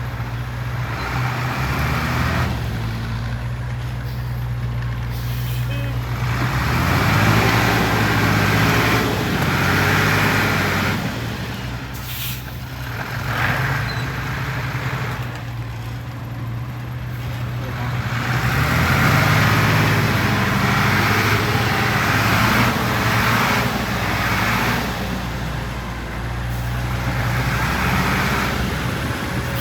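Heavy diesel engine of construction machinery running under load, its revs rising and falling several times, with a louder rushing noise swelling in and out on top.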